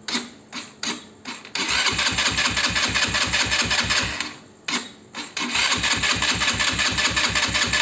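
Electric starter cranking a quad bike's petrol engine in a first start attempt after repair: a few short blips, then two long runs of fast, even cranking pulses with a short pause between them, the engine not yet catching.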